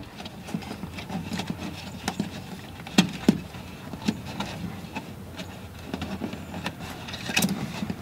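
Light clicks, taps and rustling as a rear-view mirror is held and shifted against the underside of a golf cart roof, with two sharper clicks about three seconds in and another near the end.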